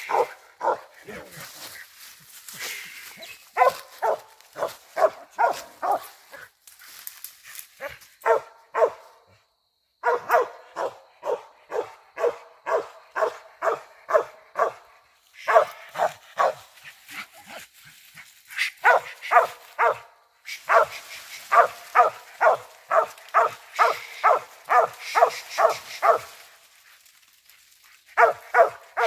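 Squirrel dog barking steadily up a tree, the chop of a dog that has treed a squirrel. Fast runs of about two to three barks a second, broken by a few short pauses.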